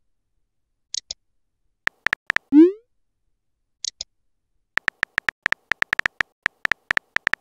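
Texting-app sound effects: keyboard clicks tapped out in quick runs as a message is typed, one rising bloop as a message is sent about two and a half seconds in, and a couple of short high blips.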